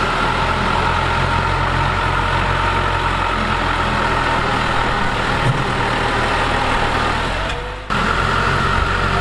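Heavy diesel engine of earthmoving machinery (bulldozer or dump truck) running steadily. It fades and breaks off for a moment near the end, then comes back at the same level.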